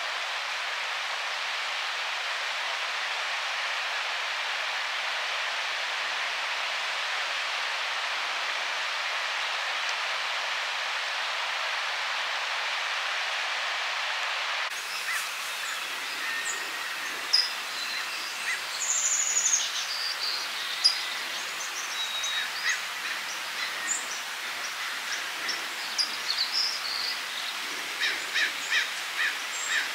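A steady hiss of noise for about the first half, then an abrupt change to a quieter background where wild birds call: scattered chirps and high whistled notes, one falling in pitch, and a quick string of repeated calls near the end.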